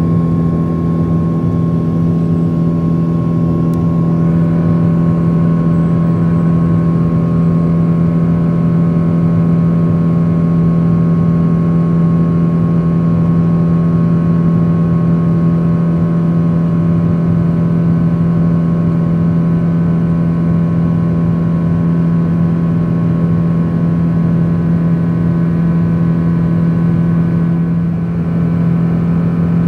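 A Boeing 777-200ER's turbofan engines heard from a window seat in the cabin during the climb after takeoff. It is a steady drone with a strong low hum and a fainter higher whine, dipping slightly near the end.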